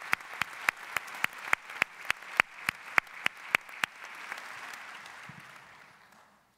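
Audience applause with one pair of hands clapping close to a microphone at a steady pace of about three to four claps a second. The close claps stop about four seconds in and the applause dies away soon after.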